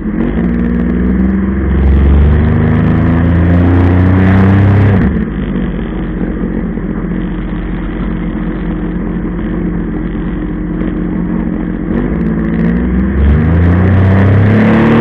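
Jet ski engine running under throttle: it climbs in pitch about two seconds in, drops back suddenly about five seconds in, runs steadily lower, then revs up again near the end.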